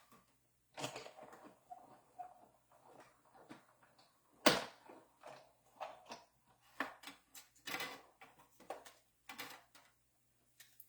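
Tabletop papercraft handling: irregular taps, clicks and rustles of paper and small tools, with one sharp click about four and a half seconds in.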